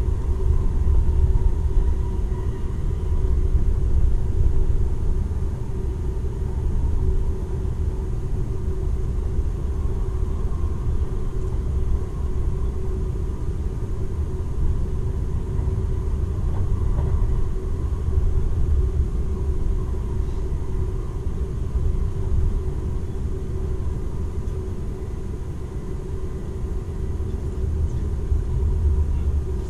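Cabin running noise of a Seibu 001 series Laview electric limited express train at speed: a steady low rumble of the wheels on the track, with a steady hum above it.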